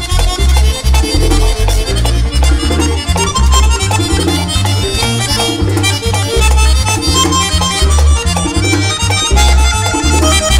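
Live merengue típico band in an instrumental passage: a Hohner button accordion plays a busy lead over an electric bass line and steady percussion.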